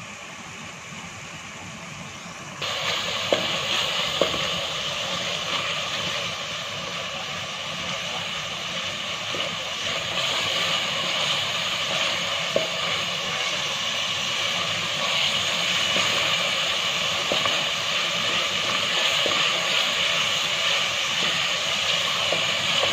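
Spice masala of ground spices and cumin seeds sizzling in hot oil in a pot, being fried down, while a wooden spoon stirs it and knocks on the pot now and then. The sizzle turns suddenly louder about two and a half seconds in and then stays steady.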